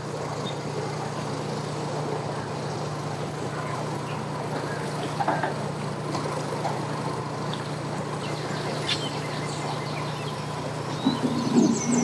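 A vehicle engine running with a steady low hum.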